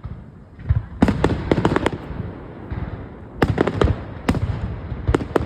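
Aerial fireworks going off: quick clusters of sharp bangs and crackles, about a second in, again midway, and near the end, over a low rumble.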